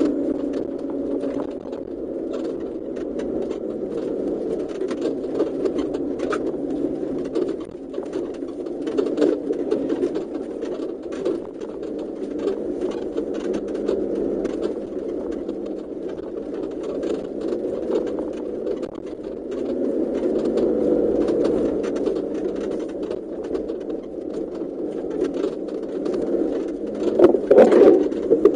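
Off-road vehicle driving over rough ground: a steady engine drone with frequent knocks and rattles, and a louder jolt near the end.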